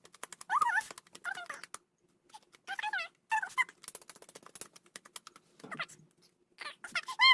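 A pet animal whining: several short, high calls that bend up and down, with quick clicks in between.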